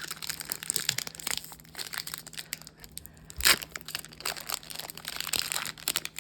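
Pokémon Brilliant Stars booster pack's foil wrapper crinkling and tearing open, with a run of crackles and one louder rip about halfway through.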